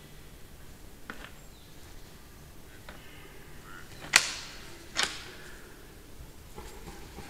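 Antlers of young red deer stags clashing as they spar: two sharp clacks a little over halfway through, less than a second apart, after fainter knocks earlier on.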